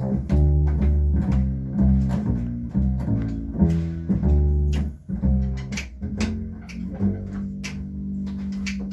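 Upright double bass played pizzicato: a line of low plucked notes, changing about every half second, with sharp ticks sounding over them.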